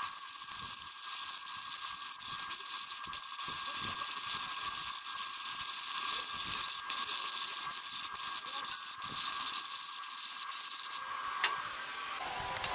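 Stick-welding arc from a HANSHI 140A mini handheld inverter welder, crackling and sizzling steadily as a 2.1 mm electrode runs a drag bead on 1.2 mm galvanized box tube, with a steady high whine underneath. The arc breaks off about eleven seconds in.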